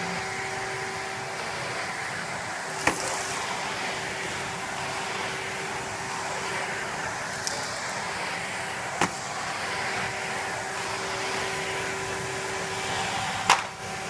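Henry canister vacuum cleaner running steadily over carpet: a rush of air with a steady motor whine. Three sharp clicks come through it, the loudest near the end.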